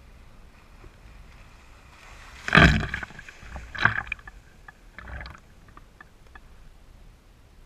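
Water splashing against a GoPro sitting at the water's surface as a kiteboard passes close and its wake washes over. There is one big splash about two and a half seconds in, smaller ones a little over a second and about two and a half seconds later, and light ticks and drips between them.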